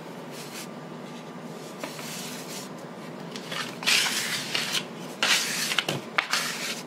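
Dough scraper scraping across the work surface under a floured ball of dough: two scraping strokes about four and five seconds in, then a short tap just before six seconds.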